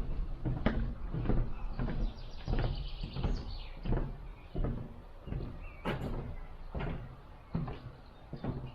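Irregular knocks and thuds, one or two a second, over a steady low rumble: a car jolting slowly along a rough dirt track, its body and contents banging over the bumps.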